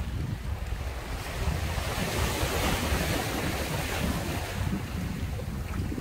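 Sea waves washing in, one wave's hiss swelling and fading in the middle, over a steady low rumble of wind on the microphone.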